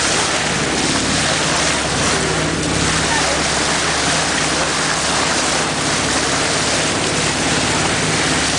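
Sea water rushing and splashing along the hull of a moving boat, a steady loud wash, with the low even hum of the boat's engine underneath.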